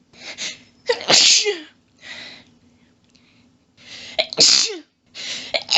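A person in a rapid sneezing fit: a sharp breath in, then a loud sneeze with a falling voiced cry about a second in, a gasping breath, a second breath in and loud sneeze around four seconds, and a third sneeze starting at the end.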